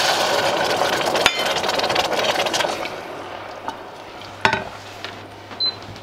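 Water poured into a hot pot of rice and garlic that were just frying, hissing and sizzling loudly as it hits and dying down after about three seconds as a wooden spoon stirs. A couple of sharp knocks sound, one about a second in and one near the end.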